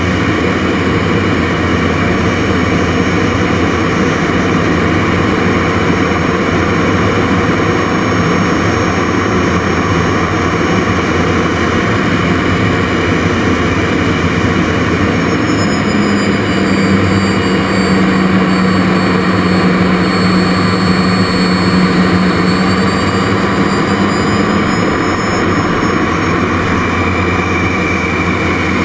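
Rolls-Royce Viper turbojet of a Jet Provost Mk5 heard from inside the cockpit during aerobatic flight: a loud, steady roar of engine and rushing air with a high whine. About halfway through, a low hum strengthens and the whine shifts in pitch for several seconds before settling back.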